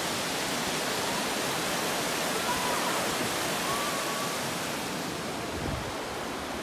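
Small mountain waterfall rushing steadily, a continuous even roar of falling water that eases slightly near the end.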